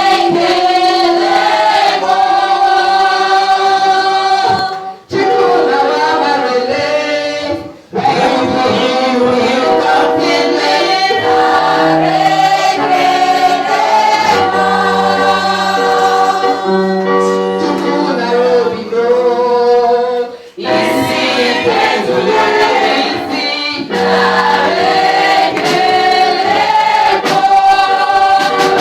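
Group of voices singing a gospel worship song, with short pauses between phrases.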